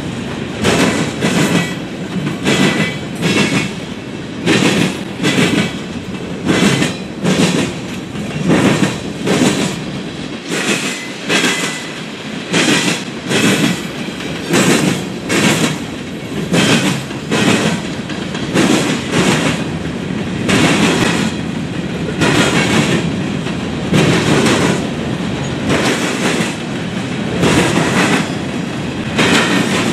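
Freight train of covered hoppers and refrigerated boxcars rolling past, its steel wheels clacking in pairs about once a second over a steady rumble, with a faint wheel squeal now and then.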